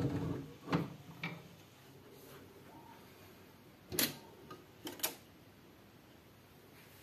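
Wooden gramophone cabinet handled by hand. The hand-crank winding of the spring motor rattles for the first moment and stops, followed by two sharp clicks. About four seconds in there is a quick cluster of clicks and knocks as the cabinet's wooden doors are unlatched and swung open.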